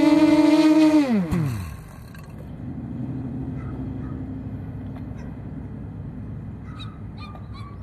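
Racing quadcopter's brushless motors whining on the ground, then spinning down in a steep falling pitch to a stop about a second and a half in. A low steady hum follows, with a few short bird calls near the end.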